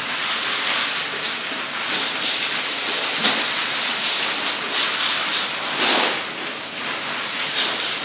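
Bottle filling line running: a steady machine hiss and clatter from the conveyor and rotary bottle table, with small glass bottles clinking against each other now and then. There are a couple of louder knocks about three and six seconds in.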